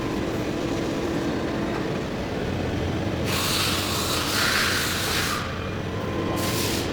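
A heavy-duty lathe runs steadily with a low hum while turning a large steel part. Hissing rushes in about three seconds in and lasts about two seconds, then comes back briefly just before the end.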